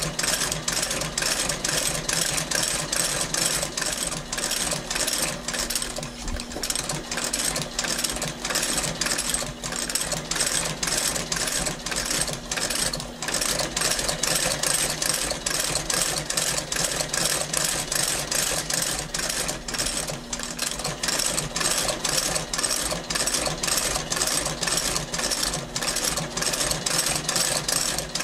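Outsole stitching machine sewing a new leather sole to a Goodyear welt, its needle and awl striking in an even rhythm of about two to three stitches a second over a steady motor hum.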